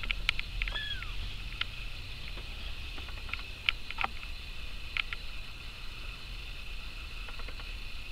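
A kitten gives one short, high mew that falls in pitch about a second in, among scattered light ticks and clicks.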